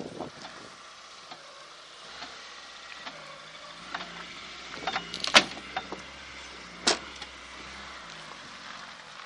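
A few sharp knocks and clanks, the loudest about five and a half and seven seconds in, over a faint low engine hum.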